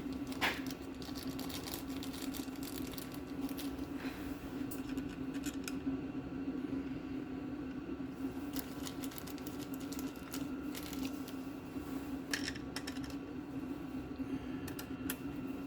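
Scattered light metallic clicks and taps of hand tools on car parts, over a steady low hum.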